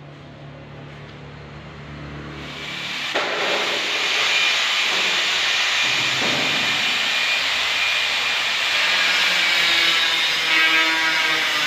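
A steady hiss that swells in over the first few seconds and then holds at an even level.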